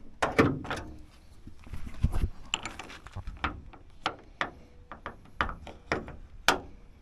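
Jeep TJ hood being lowered onto a newly fitted aluminum hood latch and the latch worked: a knock with a short ring near the start, then a string of sharp metallic clicks and clacks.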